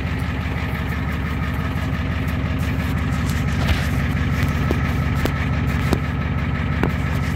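Tow truck engine idling steadily, with a few light clicks near the middle.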